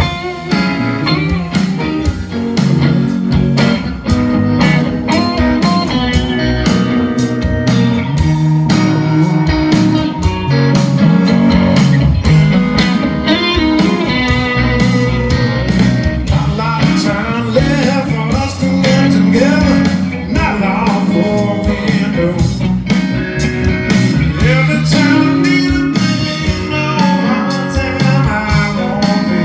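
Live blues-rock band playing electric guitars over drums, with a steady beat throughout.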